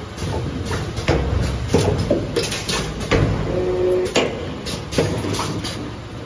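2D CNC wire bending machine at work feeding and bending metal wire: irregular clanks and knocks over a steady mechanical rumble. A short whine comes about three and a half seconds in.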